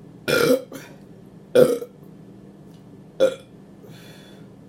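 A woman burping loudly three times, about a second and a half apart, the first burp the longest and the last the shortest.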